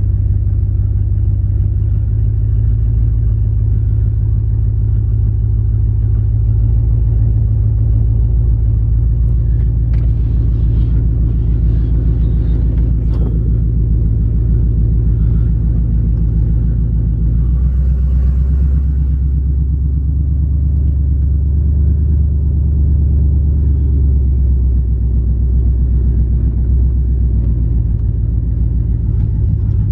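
Chevrolet Silverado pickup engine rumbling steadily, heard from inside the cab while driven cold, straight after starting without a warm-up. The engine note drops lower a little past halfway and picks up again near the end.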